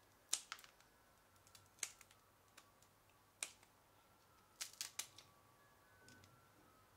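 Scissors snipping crawfish shells while the crawfish are cleaned: sharp, crisp snips, some in quick pairs or threes, in four short groups.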